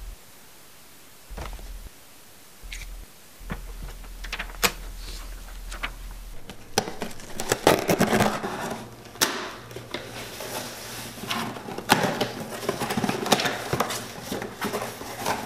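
A few scattered clicks and knocks, then scissor blades dragged along duct tape on a cardboard box, slitting it with dense crackling and scraping, and the cardboard flaps being pulled open near the end.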